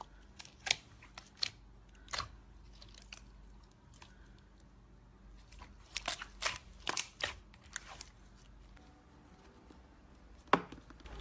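Slime being played with by hand, giving sharp crunching pops and clicks at irregular intervals. They bunch together about six to seven seconds in, and the loudest comes near the end.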